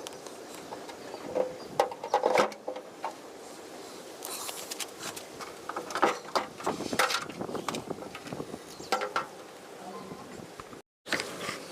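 Irregular knocks, clicks and scraping of hands working on kitchen chimney (range hood) parts, sped up to double speed; the sound breaks off for a moment near the end.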